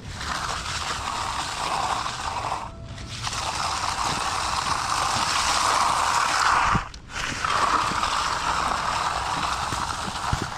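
Water spraying hard from a garden hose nozzle in a steady hiss, shut off briefly twice.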